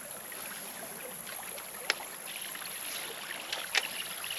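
Water moving steadily around a small boat on a river, with a few sharp clicks or taps: one about two seconds in and two more near the end.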